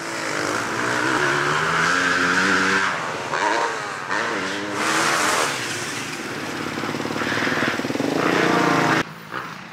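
Dirt bike engines revving, several times over, the pitch climbing with each rev; the sound drops away abruptly about nine seconds in.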